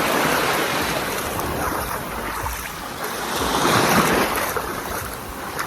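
Sea surf washing onto a beach, the waves swelling to a surge about four seconds in and then easing.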